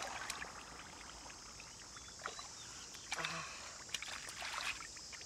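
Hands splashing and sloshing through shallow muddy water while grabbing a catfish. The splashes come about three seconds in and again around four seconds.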